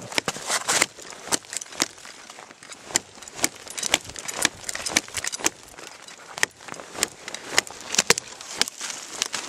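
Ontario RAT-7 survival knife chopping at small tree limbs: a string of sharp, irregular strikes, about two a second, with twigs snapping and branches crackling.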